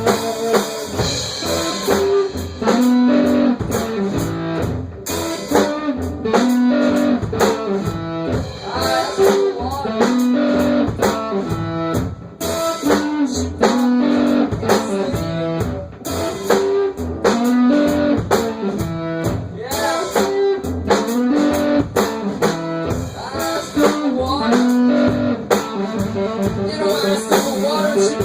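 Blues band playing an instrumental passage: guitar over a steady drum-kit beat, with no singing.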